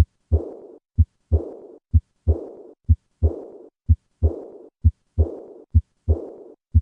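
Heart sounds of aortic regurgitation in a steady rhythm of about one beat a second. Each short first sound is followed by a second sound that runs straight into a high-pitched, blowing diastolic murmur, fading away in a decrescendo before the next beat.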